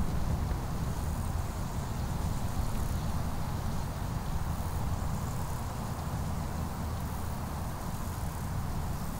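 Steady outdoor background rumble, low and even, with a faint high hiss above it.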